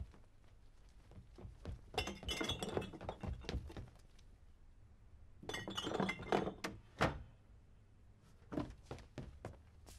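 Glass bottles clinking and knocking together inside a wooden box, in two rattling bursts, followed by a single sharp knock a little after the middle and a few lighter wooden knocks near the end.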